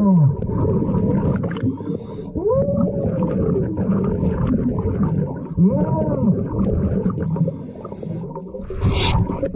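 Long drawn-out cries, each arching up and then down in pitch, three of them, over a steady noisy background, with a short hiss near the end.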